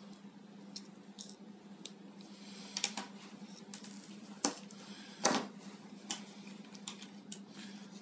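Small sharp clicks and ticks of plastic and metal as the red plastic scale of a Victorinox Picknicker pocket knife is worked back onto the knife's metal frame. The clicks come scattered, loudest about four and a half and five seconds in, over a steady low hum.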